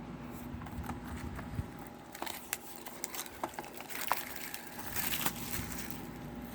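A plastic Blu-ray case and its cardboard slipcover being handled and opened: scattered light clicks and taps, with a brief rustling slide about five seconds in.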